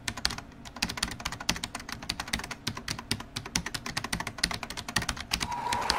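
Computer keyboard typing sound effect: rapid, irregular key clicks. Near the end, music comes in with a held tone.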